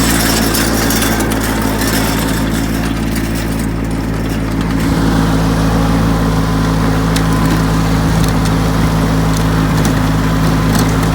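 Riding lawn mower engine running at a steady speed while it pulls a lawn sweeper, with a hiss above the engine note.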